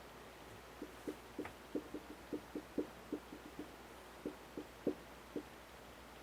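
A string of about twenty soft, low, irregularly spaced pops, starting about a second in with a short pause in the middle, of the kind made by a clicking jaw joint (temporomandibular joint) recorded up close.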